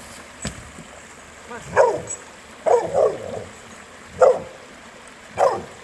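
Dog barking four times, short calls that fall in pitch, over the faint rush of a river.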